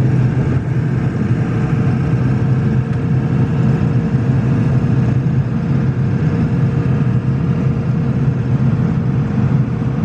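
Steady engine drone and road noise inside the cab of a one-ton dually pickup under way.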